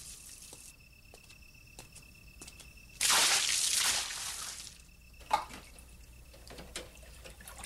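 Water splashing in a wash tub as dishes are washed, one loud splash about three seconds in, followed by a few light drips.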